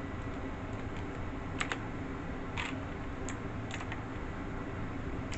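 Computer keyboard being typed on: a handful of separate keystrokes, spaced out irregularly, as a search term is entered. A steady low hum sits underneath.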